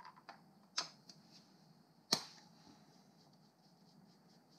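A few light metallic clicks and one sharper, louder click about two seconds in, from a screwdriver working the screws of a moped engine's stator plate.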